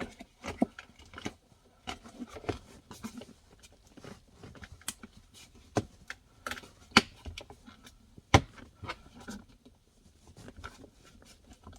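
Irregular plastic clicks, knocks and scraping as a Tesla Model Y centre console lid is pushed and fitted back into place; the S3XY Buttons controller and wiring stuffed underneath keep it from latching.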